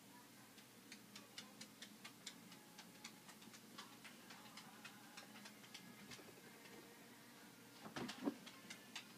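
Near silence with faint, quick ticking, about three ticks a second, and a couple of soft knocks near the end.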